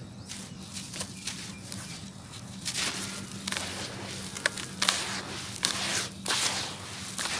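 Hands crumbling and rubbing dry cement-and-ash lumps and powder in a basin: gritty crunching and rustling, with a few sharp little cracks as lumps break, getting busier from about three seconds in.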